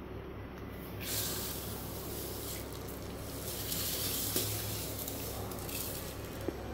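Rice poured from a vessel into a pot of biryani cooking liquid, the grains and water splashing in with a steady hiss that starts about a second in and stops near the end.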